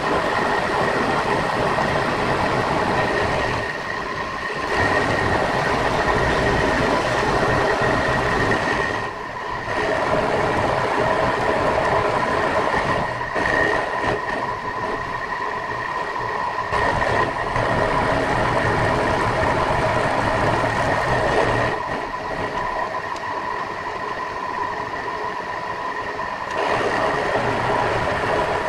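Milling machine running, its end mill cutting a metal block held in a vise: a steady whine over cutting noise, with brief drops in level every few seconds.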